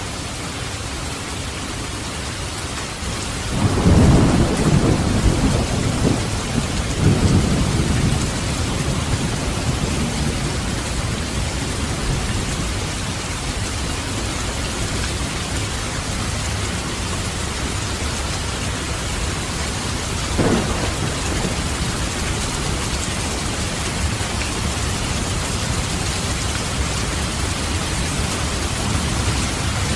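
Steady heavy rain with thunder: a long, deep rolling rumble a few seconds in, then a short sharp crack later on.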